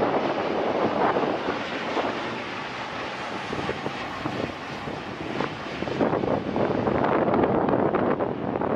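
Airliner noise during landing: a gusty rushing roar of engines and airflow that eases off a few seconds in and swells again near the end.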